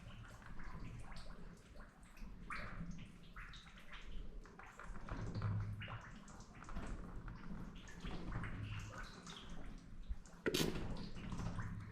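Shallow water in a tunnel splashing and sloshing irregularly, with drips, as it is stirred by someone moving through it. One sharper, louder sudden sound comes near the end.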